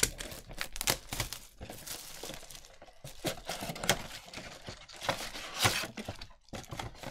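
Donruss Optic football mega box being opened by hand: cardboard sliding and scraping, and the plastic-wrapped packs crinkling and crackling as they are pulled out, with irregular sharp crackles and rustles.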